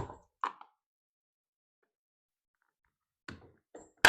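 A few light handling knocks, a stretch of dead silence, then a sharp loud click near the end: a plastic hubcap snapping onto a sprayer cart wheel.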